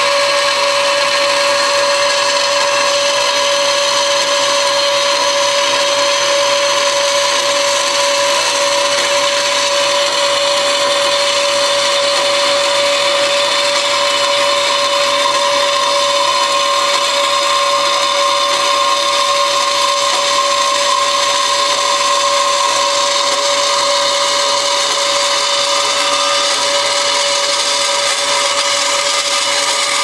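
Vertical bandsaw running, its blade cutting through a sheet of steel. The sound is steady and loud, with a constant pitched whine over the cutting noise.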